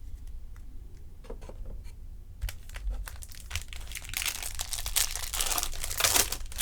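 Foil wrapper of a 2020 Topps Series 2 jumbo pack crinkling as it is torn open. A few faint clicks at first, then dense crinkling from about two and a half seconds in, loudest near the end.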